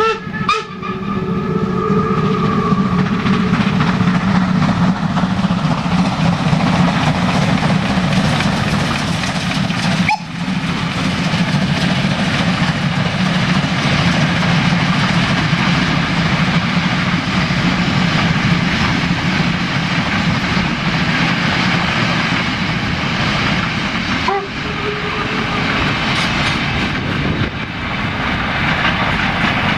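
Steam train hauled by class 52 steam locomotive 52 1360, running with a steady, dense rolling rumble. A steam whistle dies away in the first second or so.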